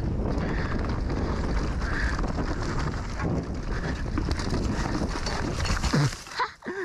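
Wind buffeting the mountain biker's GoPro microphone together with the rolling noise of a mountain bike on a dirt trail during a fast descent. The rush drops away about six seconds in as the bike slows.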